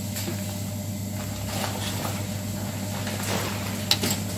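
Small clicks of a watchmaker's tools and fingers handling a watch movement in its metal movement holder, with one sharper click near the end, over a steady low hum.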